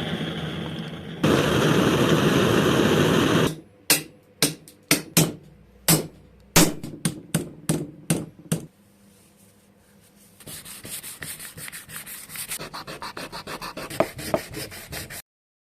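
Hand work on metal parts: a few seconds of steady abrasive rubbing, then about a dozen sharp knocks spread over five seconds, then quick rhythmic rubbing strokes that cut off abruptly near the end.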